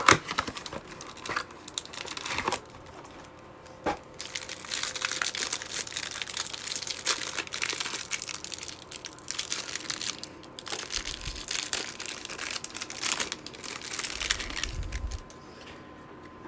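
Hands tearing open a trading card hanger box and crinkling its plastic wrapping, a steady crackle with a couple of sharp snaps near the start.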